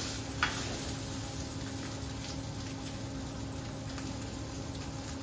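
Sirloin steak sizzling in a hot pan on a gas burner, under a steady hum from the kitchen's extraction hood. A single click about half a second in.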